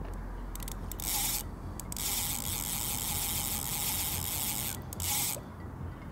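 Carp reel's drag giving line in bursts, a fast ratcheting buzz as a hooked carp pulls against it: a short burst about a second in, a long one of nearly three seconds from about two seconds in, and a brief one just after five seconds, with a few clicks between.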